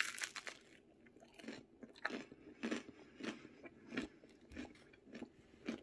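Toasted English muffin bread, crisped in an air fryer, crunching loudly as it is bitten into at the start. Steady crunchy chewing follows, about one crunch every two-thirds of a second.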